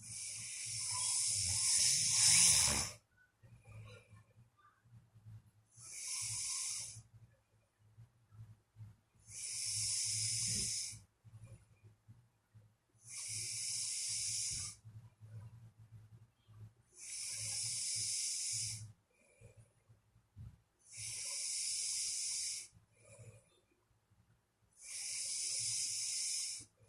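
A sleeping person snoring: a hissing breath about every four seconds, seven in all, the first one longest and loudest.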